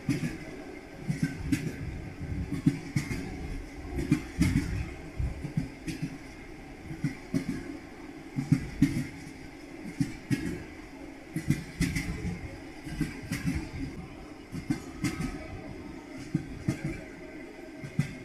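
Railway carriage wheels knocking over rail joints: a steady rolling rumble with repeated clusters of clickety-clack knocks every second or two.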